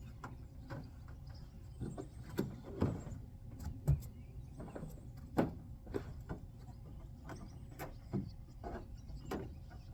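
Irregular knocks and thumps of a Trailfx plastic drop-in bed liner being pushed, lifted and flexed into a pickup bed. The loudest thump comes about four seconds in.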